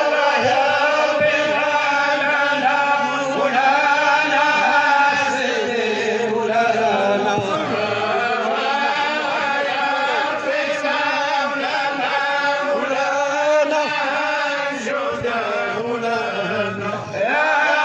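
Men's voices chanting dhikr together in long, drawn-out notes that rise and fall without a break.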